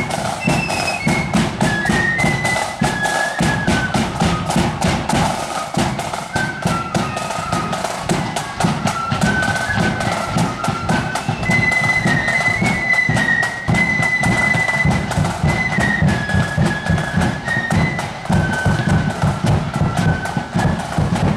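Marching flute band playing a tune while on the march: a high flute melody over a dense, rapid drumbeat.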